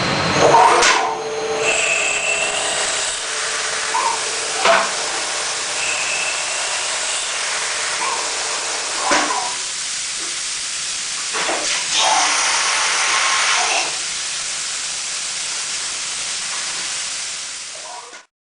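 Deckel Maho CNC milling machine cutting at high speed: a steady hiss with short high whines that come and go, and a few brief knocks.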